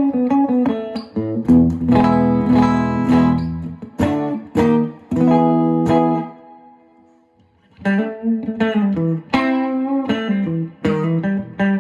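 Guitar played solo: picked single-note lines and a strummed chord that rings for a couple of seconds. The notes die away to near silence about seven seconds in, then the picking resumes.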